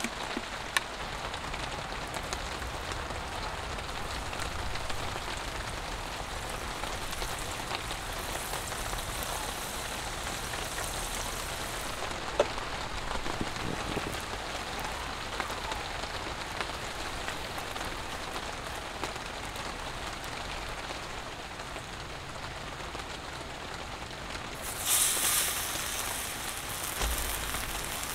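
Steady rain falling on a surface, an even hiss, with a couple of single light clicks and a short louder hiss near the end.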